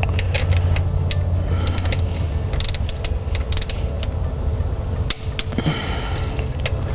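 Click-type torque wrench ratcheting T27 bolts down to 97 inch-pounds on the solenoid retaining plate of a Ford 6R140 transmission valve body: spurts of sharp ratchet clicks over a steady low hum.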